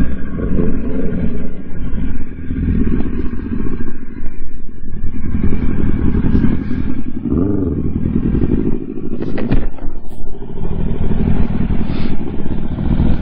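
Sport-bike inline-four engines of a Yamaha R1 and a Honda running at low speed and then idling, with wind on the microphone while moving, a brief rev about seven seconds in, and a few sharp clicks near the end.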